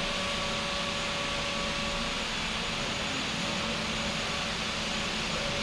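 Steady hum and hiss of factory machinery running, with faint steady whine tones over it.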